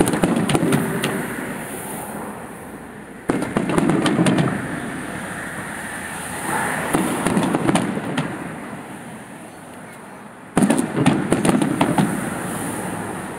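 Fireworks display: volleys of aerial shells bursting with sharp bangs, each followed by a run of crackling that fades over a few seconds. Fresh volleys start about three seconds in and again about ten seconds in.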